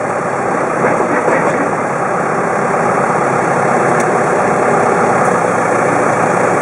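Cat 906H wheel loader's 72-horsepower Cat diesel engine running steadily, heard from inside the cab.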